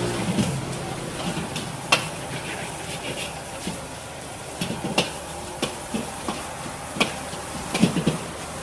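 Food sizzling in a pan while a utensil stirs it, knocking sharply against the pan a few times, twice close together near the end.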